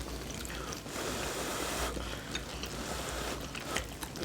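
Soft eating sounds over a stew: scattered faint clicks of utensils and chewing, with a brief hiss about a second in.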